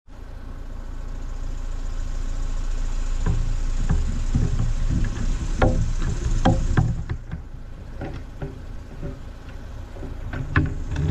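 Moke open-top car driving: the engine runs under steady road and wind noise, with many short knocks and rattles from about three seconds in. The noise gets louder over the first few seconds and drops off after about seven seconds.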